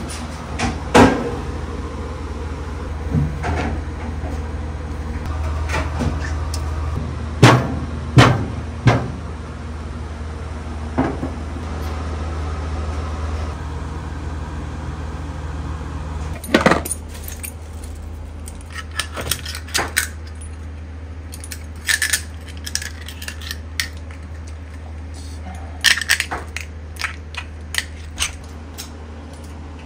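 Kitchen prep noise. A steady low hum runs under scattered knocks and clatter until about halfway, when the hum drops away. Clusters of sharp clicks and clinks of a knife working open ark shell clams over a metal bowl and sink follow.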